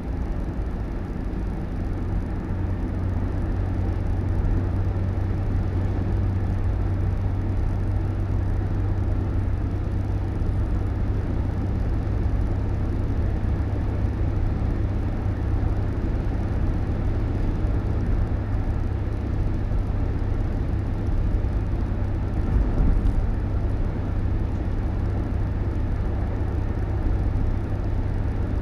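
Steady drone of a moving road vehicle, a continuous low hum under even road noise that barely changes throughout.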